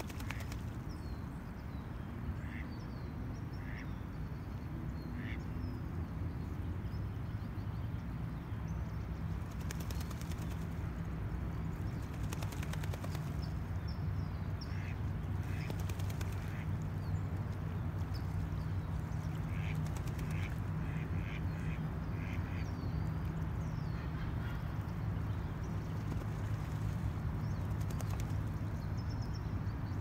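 Mallards quacking: scattered short quacks, then a quick run of about five a little past the middle. Small birds chirp faintly over a steady low rumble of distant traffic.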